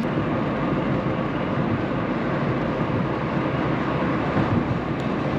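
Steady road noise of a car being driven, an even rumble and hiss of tyres and engine.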